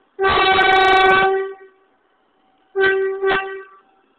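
R142 subway train's horn: one long blast of about a second, then two short blasts in quick succession.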